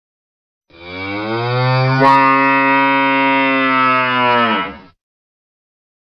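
A cow's single long, low moo, held steady for about four seconds and falling away at the end, with a brief click partway through.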